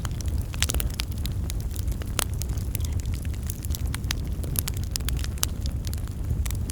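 Fire crackling in a fireplace: irregular sharp pops and snaps over a steady low rumble.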